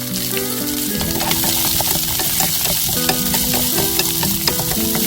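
Peeled garlic cloves frying in cooking oil in a pan, sizzling steadily, with scattered light clicks of a utensil stirring them against the pan.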